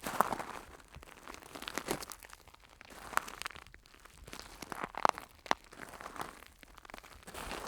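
Very slow footsteps crunching on large gravel: separate grinding crunches with sharp stone clicks, a few seconds apart, with quiet gaps between steps.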